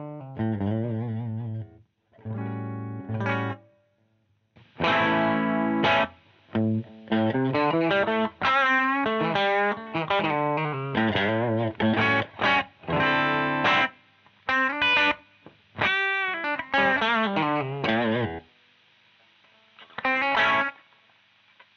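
Distorted electric guitar played through a Joyo JF-22 Oxford Sound pedal, an Orange-amp-voiced overdrive and amp simulator. It plays a riff in short phrases, starting with low chugging notes, with brief stops and some notes bent with vibrato later on.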